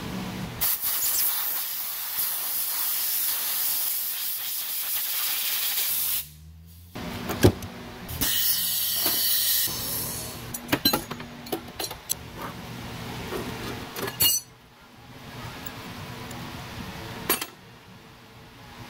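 Compressed air hissing out of a rubber air hose at its brass fitting: one long hiss of about five seconds, then a second, shorter one. It is followed by scattered sharp clicks and knocks of metal tools and fittings being handled on a steel workbench.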